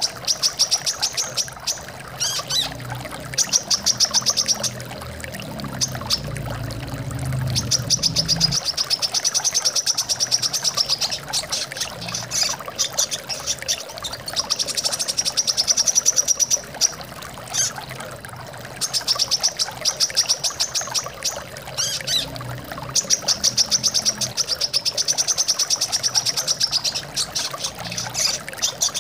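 Brown-throated sunbird (kolibri kelapa) song: fast, high chirping trills, each run lasting one to a few seconds, repeated again and again, over the steady sound of flowing water.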